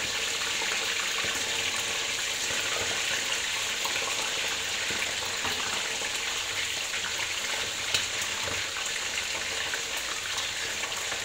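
Chicken drumsticks deep frying in hot oil in a steel wok: a steady sizzle with fine crackling, and a single light tap about eight seconds in.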